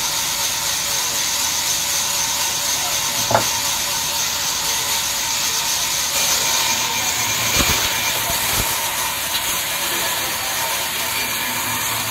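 Sawmill band saw running with a steady hiss as it cuts a jackfruit log. A sharp knock comes about three seconds in, and two dull thumps come around eight seconds in.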